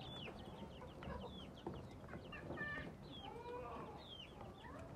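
A brood of young chicks peeping: many short, high, falling chirps, several a second and overlapping.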